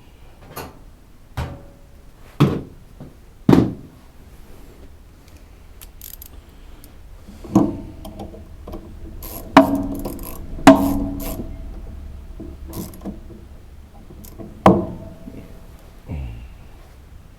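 Metal hand tools clinking and knocking against metal while fastening parts on a lawn tractor's starter: about ten separate, irregular strikes, several ringing briefly.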